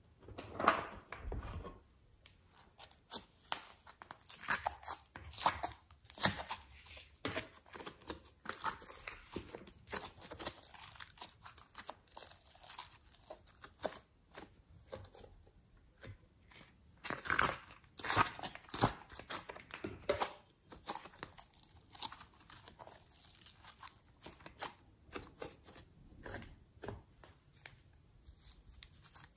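Slime being stretched and folded in the fingers, close up, making irregular sticky crackling and tearing sounds, mixed with clicks of small plastic containers being handled.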